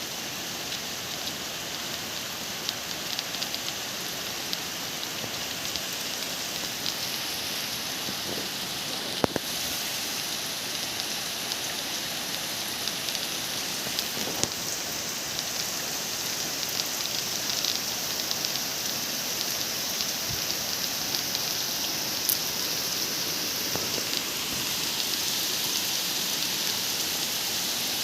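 Steady rain falling, with scattered sharp taps of single drops hitting a surface; it grows slightly louder toward the end.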